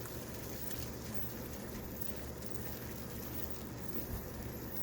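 Pot of water at the boil on the stove, bubbling steadily with peaches blanching in it.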